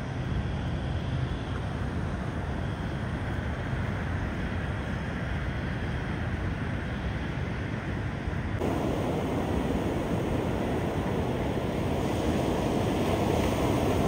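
Ocean surf washing on the beach with wind buffeting the microphone. A little past halfway it changes abruptly to louder, closer breaking surf.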